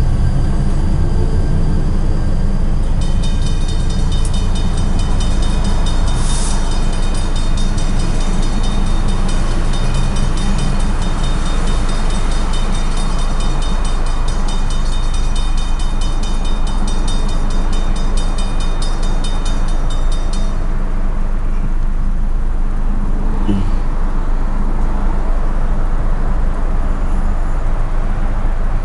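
Railroad grade-crossing bell ringing in a fast, steady pattern over a continuous low rumble. The bell starts a few seconds in and cuts off suddenly about twenty seconds in, as the crossing gates go back up.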